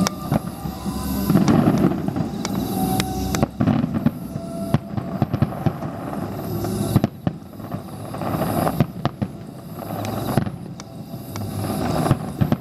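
A starmine barrage of aerial fireworks: many shell bursts in quick succession, sharp bangs over a continuous rumble and crackle.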